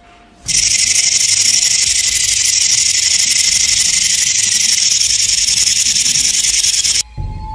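Snake hissing: a loud, steady hiss that starts about half a second in and cuts off suddenly near the end.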